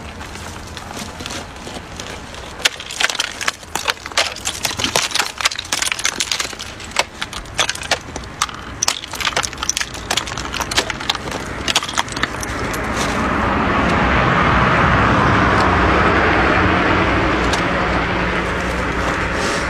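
Icicles snapping and cracking as they are broken off by hand and smashed on rocks: a quick run of sharp cracks and clinks for about ten seconds. After that a steady rushing noise swells up and slowly eases off.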